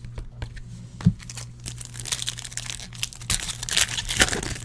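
Foil trading-card pack wrapper being torn open and crinkled in the hands, a dense crackling that builds from about a second and a half in. A single soft knock comes about a second in.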